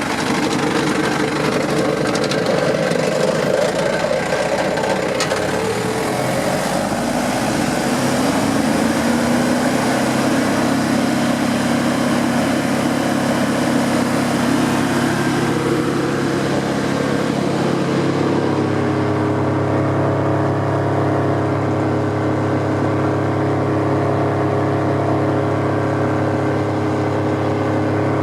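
Wood chipper's 3.3-litre Cummins diesel engine running, its pitch rising partway through and then, about two-thirds of the way in, settling to a steadier lower note.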